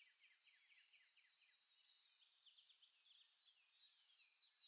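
Faint chorus of songbirds: many short, quick falling chirps from several birds at once, overlapping without pause.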